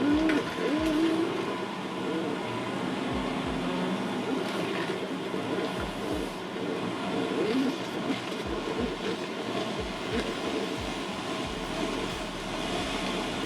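Tow vehicle running steadily at low speed while reversing a travel trailer.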